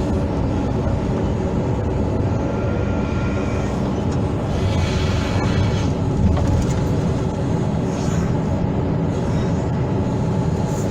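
Hydraulic excavator's diesel engine running steadily under working load, with a higher hiss from the hydraulics coming and going a couple of times.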